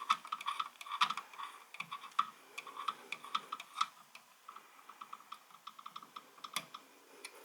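Quick runs of light metallic clicks from a screwdriver turning the small retaining screw of an M.2 NVMe SSD, tapering off near the end.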